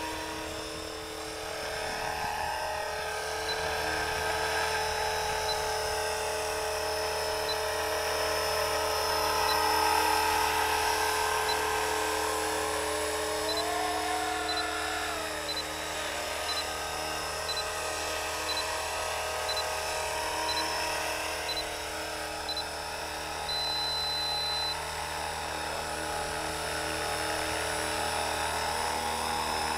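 Radio-controlled model helicopter in flight: its motor and rotor give a steady whine that bends up and down in pitch as it manoeuvres. Short high electronic beeps repeat, first every two seconds, then every second, and end in one longer beep.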